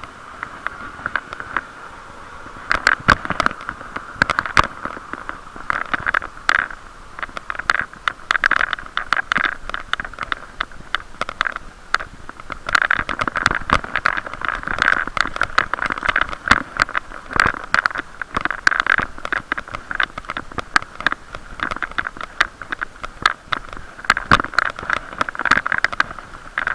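Bicycle riding over a bumpy road, heard through a waterproof camera case: a muffled, boxy rushing noise with frequent sharp knocks and rattles, among them a bike lock rattling against the handlebar.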